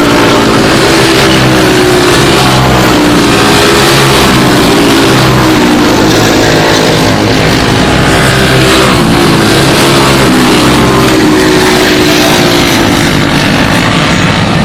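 A pack of four-stroke racing karts with Briggs & Stratton Animal engines running at high revs together. Their several engine notes overlap and rise and fall in pitch as the karts accelerate and lift.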